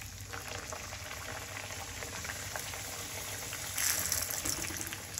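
Puris deep-frying in hot oil in a kadhai: a steady sizzling, bubbling crackle that grows louder and brighter about four seconds in, as a second puri frys alongside the first.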